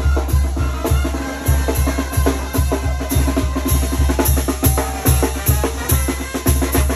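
Music with a fast, steady bass-drum beat, nearly three beats a second, over drums and other instruments.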